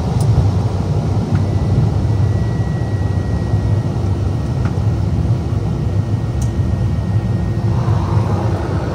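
Cessna Caravan's PT6A turboprop engine and propeller running steadily, heard from inside the cockpit as the plane rolls along the runway: a constant low drone.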